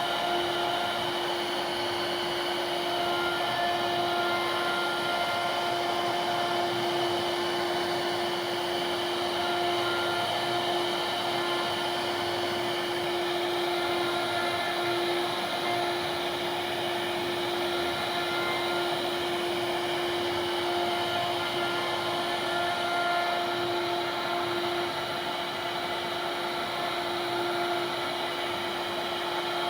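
CNC router spindle running steadily while it carves a wooden door panel: a constant high whine over a rushing noise.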